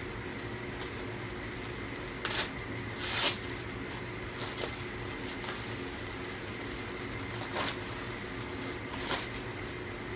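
Plastic poly mailer bag crinkling as it is handled and opened: a few short rustles, the loudest two about two to three seconds in, over a steady room hum.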